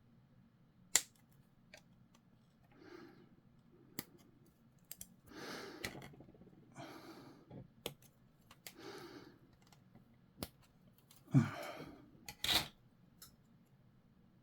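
Sharp clicks of hobby clippers snipping a plastic model-kit part off its sprue, a few times, with softer rustling of the plastic parts being handled in between.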